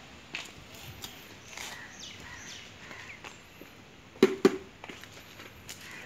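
Two sharp clicks about a quarter second apart, a little past the middle, as the Mahindra Gusto scooter's seat is unlatched and lifted open.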